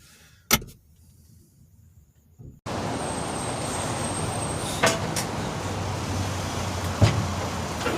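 A single click in near quiet, then an abrupt cut to steady vehicle and traffic noise, broken by a few sharp knocks.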